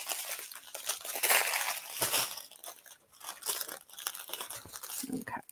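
Small plastic bags of diamond painting drills crinkling and rustling as they are handled and laid out in a row, in irregular bursts with small crackles.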